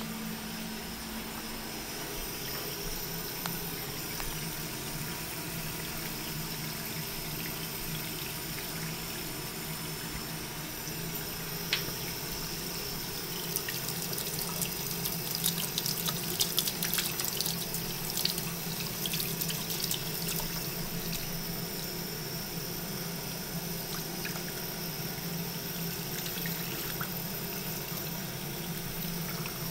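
Bathroom sink faucet running a thin stream into the basin, with a spell of splashing and dripping in the middle as a hand and the cat's head get into the water; a steady low hum runs underneath.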